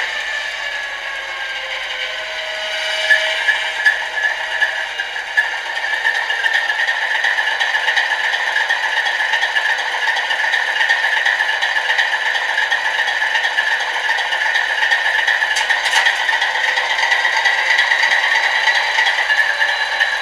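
Diesel locomotive engine sound played by a model train's digital sound decoder through its small onboard speaker: a steady, tinny rattling drone with no bass. A tone falls in pitch over the first couple of seconds, and a few sharp clicks come a few seconds in.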